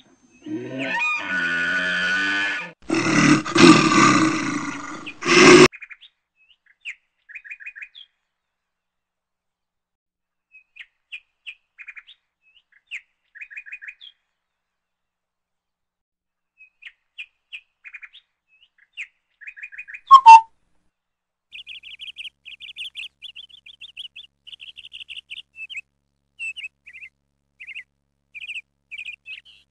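Music plays for about five seconds and cuts off suddenly, leaving small forest birds chirping in short, rapid trills. About twenty seconds in there is one much louder sharp call, and after it the chirping goes on almost without a break.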